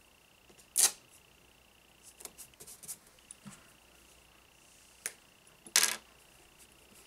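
Quilting materials being handled: two short rustles, about a second in and near the end, with scattered light clicks and taps between. A faint steady high whine runs underneath.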